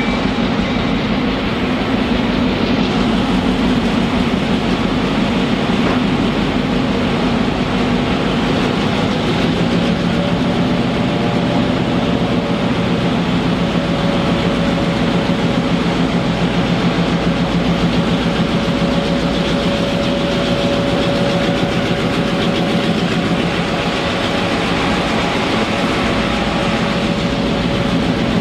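Ex-Santa Fe GP7 diesel-electric locomotive running close by with a steady drone as the train rolls slowly. A steady higher-pitched tone joins about a third of the way in.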